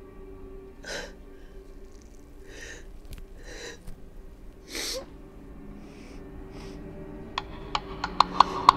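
A woman's ragged, gasping breaths, about five sharp ones, over a low steady drone. Near the end a run of sharp clicks begins.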